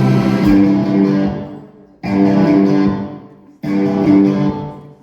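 Song intro: guitar chords struck and left to ring out. A new chord comes in about every second and a half, each one fading almost to nothing before the next.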